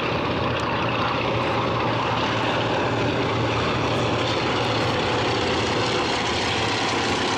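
Several Antonov An-2 biplanes passing low and slow overhead in formation. Their nine-cylinder radial piston engines and propellers make a steady, even drone.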